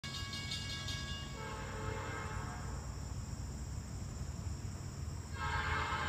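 Air horn of an approaching CN freight train's diesel locomotive sounding a multi-tone chord: one blast fades out in the first second or so, a low rumble carries through a quieter stretch, and a louder blast starts near the end.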